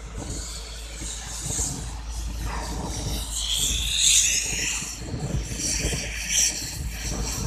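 Mobile crane's diesel engine running steadily, with a louder high-pitched scraping noise swelling about four seconds in and again near the end.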